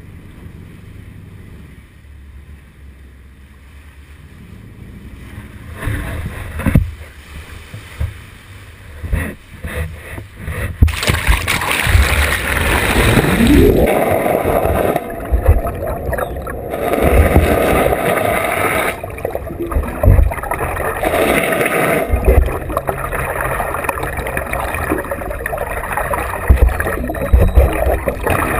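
A fishing boat backing down, its engine and propeller wash picked up through a waterproof action-camera housing. It is quieter and muffled at first, then gets much louder with rushing, gurgling water and low thumps from about eleven seconds in, once the camera is underwater. A rising engine whine comes a little past twelve seconds.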